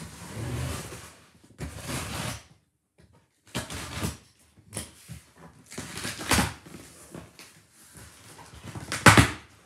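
Box cutter slicing through the tape and cardboard of a shipping box in a run of scraping strokes, with cardboard rubbing as the box is handled. The loudest scrape comes near the end.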